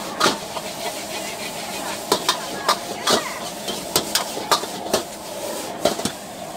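Metal ladle clanking and scraping against a wok as noodles are stir-fried, with irregular sharp clanks about twice a second over a steady sizzle from the hot wok.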